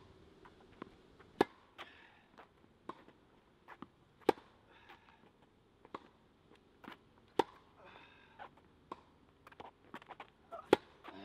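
Tennis rally: sharp racket-on-ball hits about every three seconds, with fainter ball bounces and hits between them.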